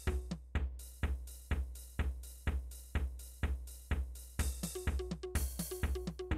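A Samsung SGH-T400 MIDI ringtone rendered by the Beatnik synthesizer: a drum-machine beat with a kick about twice a second, plus snare and hi-hat. A short repeated synth note joins in near the end.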